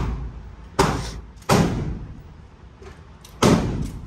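Gunshots at an indoor shooting range: three loud reports, about 0.8 s, 1.5 s and 3.4 s in, each with a short echoing tail, and a couple of fainter shots between them.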